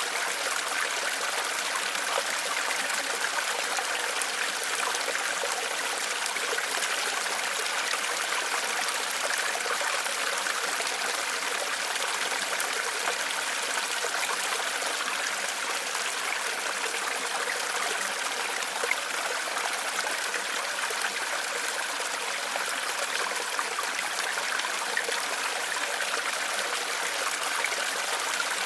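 Small stream flowing and trickling over stones, a steady babbling rush of water.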